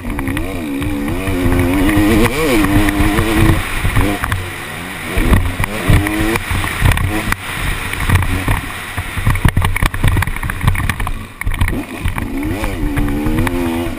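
KTM 250 SX two-stroke motocross engine being ridden hard, its pitch climbing and dropping as the throttle is opened and shut through corners and straights, with wind buffeting the microphone and the jolts of the bike over the bumps.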